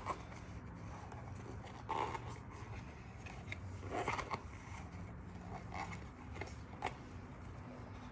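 A rubber inner tube being worked by hand into a BMX tyre: faint scattered rubbing and scraping, with a few louder scuffs about two, four and seven seconds in.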